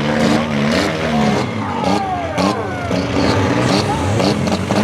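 Several front-wheel-drive demolition derby cars running at once, their engines revving up and down, with a few sharp knocks mixed in.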